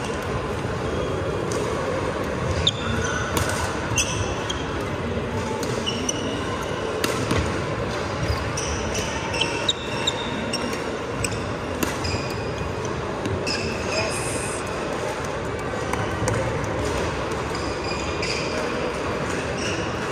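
Badminton rally: sharp racket strikes on the shuttlecock and sneakers squeaking on the wooden court, over a steady background of crowd chatter.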